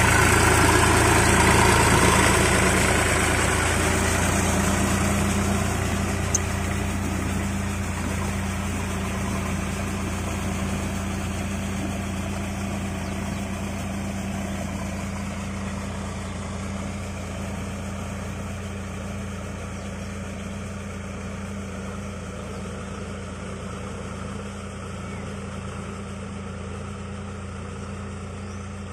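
Sonalika DI-47 RX 4WD tractor's diesel engine running steadily while pulling a rotavator through flooded mud. It is loud close up at first and grows gradually fainter as the tractor moves away.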